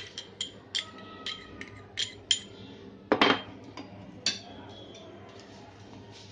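Metal spoon clinking and scraping against a small ceramic bowl as chopped tomato and chilli are tipped out, a string of sharp clinks, some ringing briefly. A heavier knock comes a little past three seconds in as the bowl is set down on the counter.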